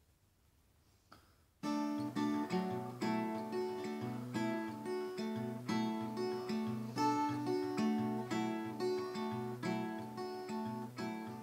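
Acoustic guitar begins about a second and a half in, playing an intro of plucked chords in a steady rhythm.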